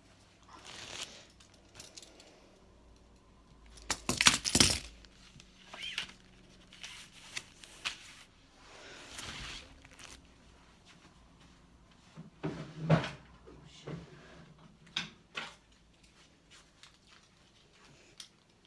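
Metal handcuffs and their keys being handled: scattered sharp metallic clicks and short jingles, the loudest cluster about four seconds in, more clicks further on.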